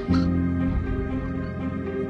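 Background music: sustained chords with a steady low bass note, a new chord coming in right at the start.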